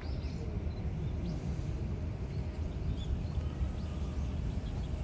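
Steady low outdoor rumble with a few faint, short, high chirps scattered through it.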